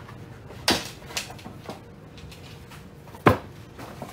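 Packaging being handled on a table: a large paper shopping bag is picked up and moved, with several sharp knocks and taps. The loudest knock comes about three seconds in and another just under a second in.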